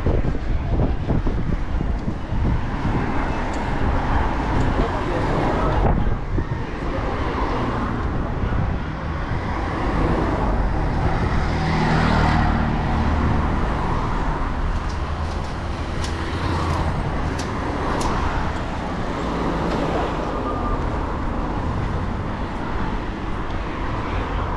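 Street traffic heard from a moving bicycle: car and three-wheeled mototaxi engines running close alongside, loudest about halfway through as the bike passes between them.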